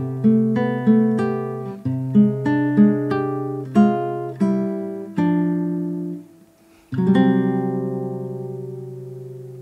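Classical guitar playing alone: single plucked notes over a ringing bass note, a short pause about six seconds in, then the song's final chord strummed and left to ring out and fade.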